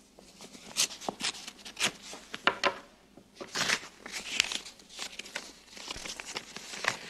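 Paper envelope being slit open with a knife, then the letter rustling and crackling as it is pulled out and unfolded, in a string of irregular short bursts.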